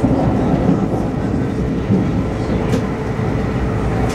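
Brightline passenger train running at speed, heard from inside the coach: a steady rumble of wheels on rail with a faint steady hum.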